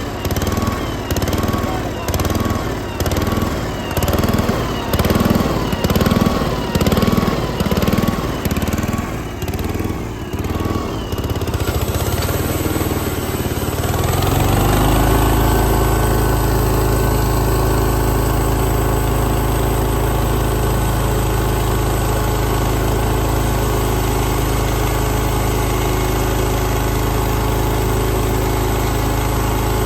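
Briggs & Stratton engine of a Kasco band sawmill running, pulsing unevenly about once a second at first, then about fourteen seconds in rising in pitch and settling into a steady, even run.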